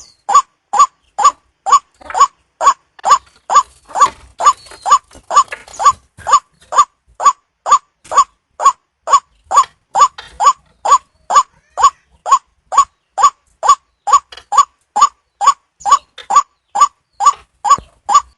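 White-breasted waterhen (ruwak-ruwak) calling, one short note repeated steadily about twice a second without a break.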